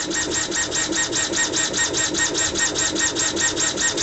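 Laser engraver marking an anodized receiver through Duracoat: a steady, rapid rhythmic buzz of about eight pulses a second.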